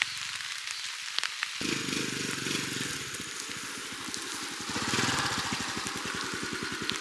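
Food sizzling and crackling in a hot pan, with scattered sharp pops and a louder surge of sizzle about five seconds in.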